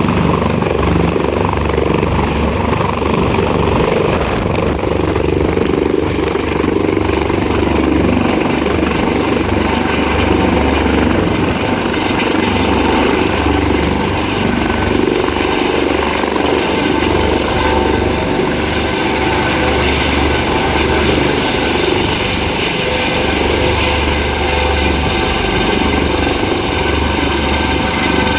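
Rescue helicopter running steadily, the rotor's low beat under a thin high turbine whine.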